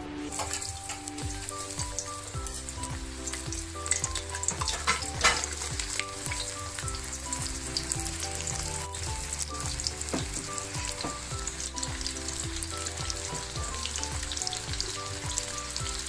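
Thin banana slices sizzling and crackling as they deep-fry in hot cooking oil in a wok, with a louder burst of crackling about five seconds in.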